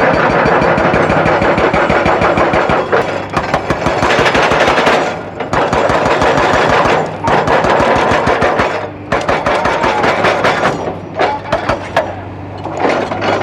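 Excavator-mounted hydraulic breaker hammering rock in a rapid, continuous run of blows over the diesel engine, with brief pauses a few times.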